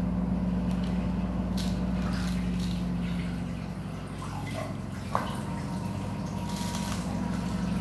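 Ice cubes tipped from a plastic ice-cube tray into a glass bowl of shaved timun suri in liquid, with small splashes and knocks and one sharp click about five seconds in. A steady low hum runs underneath.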